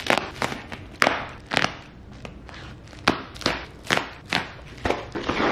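Scissors snipping through the plastic wrap around a rolled-up rug: an irregular run of short, sharp cuts, with plastic rustling in between and more rustle near the end.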